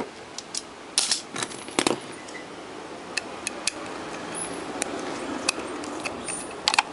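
Small screwdriver clicking and scraping in the screw of a handheld dynamic microphone's switch plate as the screw is unscrewed, with handling of the microphone body. Scattered sharp clicks come about a second in, just before two seconds and near the end, with soft rubbing in between.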